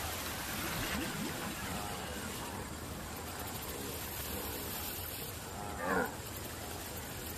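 Quiet background with a few faint animal-like sounds, and one short grunting call from the cartoon wildebeest about six seconds in.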